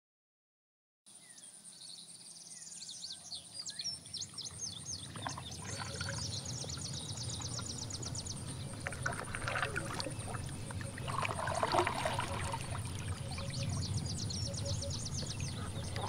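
Woodland riverside ambience that starts about a second in and swells: small birds sing in quick chirping trills in several runs over a low steady rumble, with a thin steady high-pitched tone throughout.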